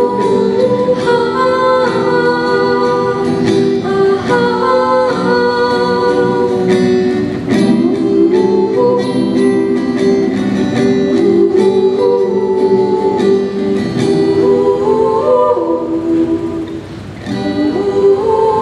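Two girls singing a song into microphones, accompanied by a picked acoustic guitar. The music drops briefly softer near the end before picking up again.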